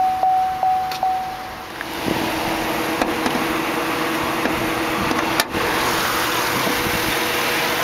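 2008 Chevrolet Tahoe's warning chime dings about four times in quick succession. Then a steady rushing noise with a low hum sets in, from wind and the idling 5.3-litre Vortec V8, broken by one sharp knock about five and a half seconds in.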